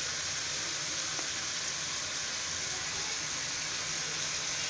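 Steady sizzling hiss of boneless chicken frying in a pan on the stove, with a faint low hum under it.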